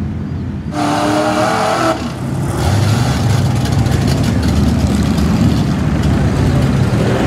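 Lifted mud-truck engines running with a loud, deep rumble through the second half. Before that comes a stretch of ATV engine noise with a steady pitched tone lasting about a second.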